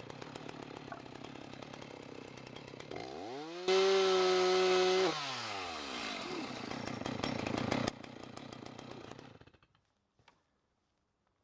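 Stihl chainsaw running, then revving up about three seconds in. It holds high speed loudly for over a second and drops back down. It keeps running more quietly and cuts out near the end.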